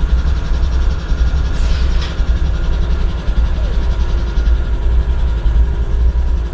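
GE ES40DC diesel-electric locomotive's 12-cylinder GEVO engine idling with a deep, steady rumble. A brief faint high sound falls in pitch about one and a half seconds in.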